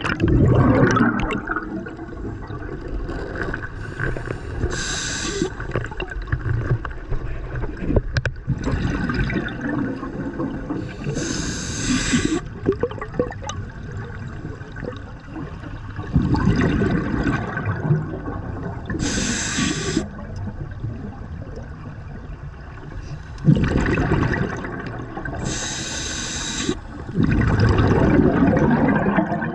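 Scuba diver breathing underwater through a regulator: short hissing inhalations alternate with longer bursts of bubbling exhaled air, repeating every five to seven seconds.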